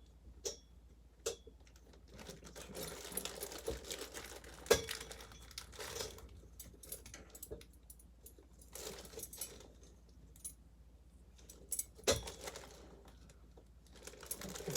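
Rustling and crinkling of packaging, with clinks and a few sharp clicks of small metal and plastic CPU-cooler mounting parts being handled and set down. The clicks a little over a third of the way in and a little past the middle are the loudest.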